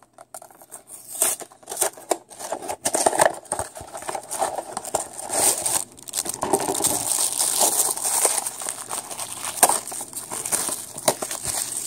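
Packaging of a blind-box model car being torn open and handled, with a continuous crinkling crackle full of small snaps and rustles.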